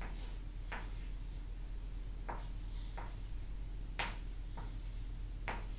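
Chalk tapping and scraping on a blackboard while a formula is written: about seven short, sharp strokes, the loudest about four seconds in.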